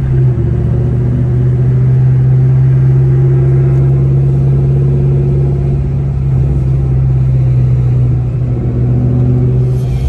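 Supercharged, iron-block V8 of a 2003–04 Ford Mustang SVT Cobra ('Terminator') running steadily while cruising in gear, heard from inside the cabin as an even, low engine drone with little change in pitch.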